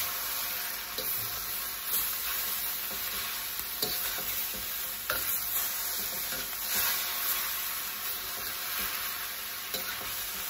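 Rice noodles, tofu and broccoli sizzling in a hot wok while a metal spatula stirs and scrapes through them, with a few sharp clicks of the spatula against the pan.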